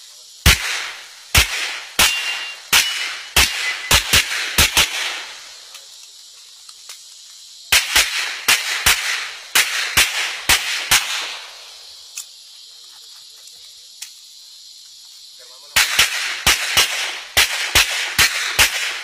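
Pistol fired in three rapid strings of about nine or ten shots each, with pauses of about three and five seconds between the strings. Each shot is a sharp crack with a short echo.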